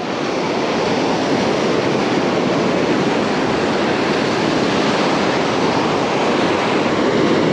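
Ocean surf breaking and washing up the beach close by: a steady rush of whitewater and foam.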